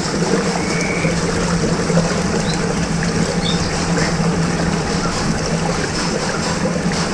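Water swirling and rushing steadily in a whirlpool, over a steady low hum. A few faint, brief high chirps come through in the first half.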